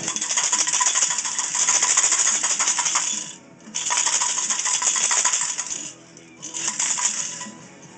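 Coins rattling inside a metal beer can being shaken hard, in three bouts with short pauses between them.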